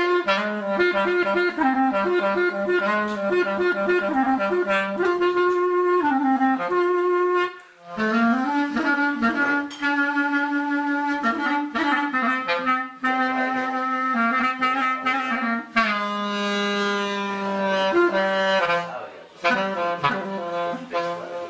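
Solo clarinet playing an unaccompanied melody, one note at a time with sliding, ornamented runs between notes. It breaks off briefly for a breath about a third of the way in and again near the end.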